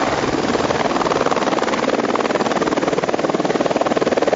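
Air-ambulance helicopter descending to land close by, its rotor blades chopping fast and evenly.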